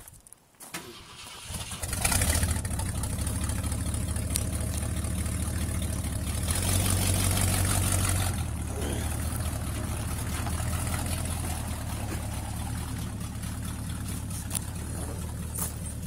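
1965 Ford F100's 390 V8 starting up about two seconds in and then running, briefly a little higher around the middle before settling to a steady idle. The exhaust is loud and raw from extremely bad exhaust leaks on a tired engine.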